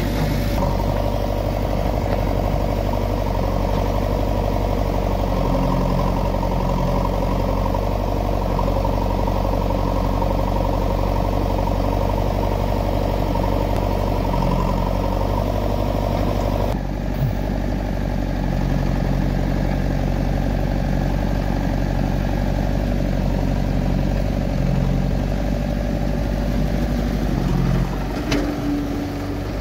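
Diesel engines of a JCB backhoe loader and a Powertrac Euro 439 tractor running steadily at idle while the loader works; the sound changes abruptly partway through.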